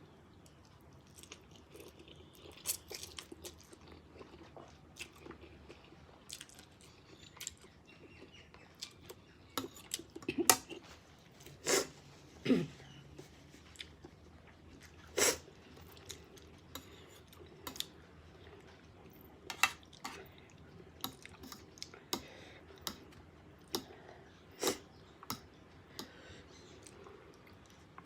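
Close-miked mouth sounds of a person eating Samyang spicy instant noodles: chewing and smacking, with short sharp clicks scattered irregularly, the loudest a cluster about 10 to 15 seconds in.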